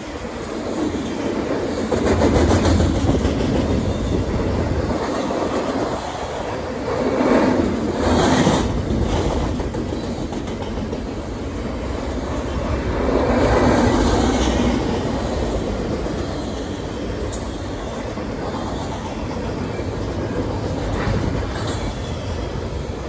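Empty intermodal freight cars of a CN train rolling past, with a continuous rumble of wheels on rail and clickety-clack over the rail joints, swelling louder a few times as the cars go by.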